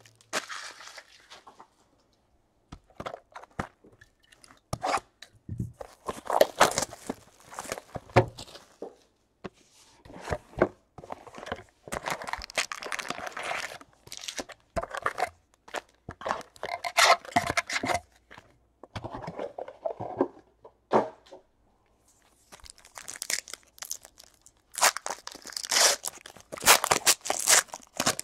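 Cardboard box of trading card packs being opened and the packs handled, in irregular crunching rustles and clicks; near the end, foil card-pack wrappers crinkling and tearing open.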